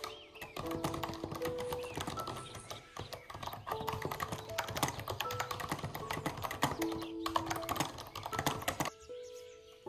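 Fast typing on a computer keyboard, a quick irregular run of key clicks that stops about a second before the end.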